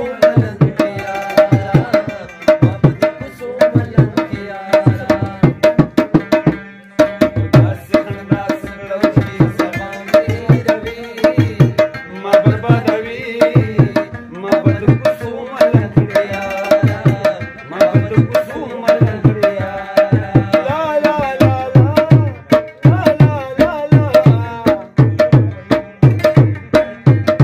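Instrumental interlude of a Pashto ghazal: tabla playing a steady, even beat under a melody instrument, with no voice.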